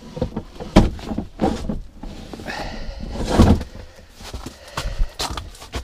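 Knocks and thumps of gear being handled in the plastic sled base of a portable ice shack, with a longer scrape about three seconds in.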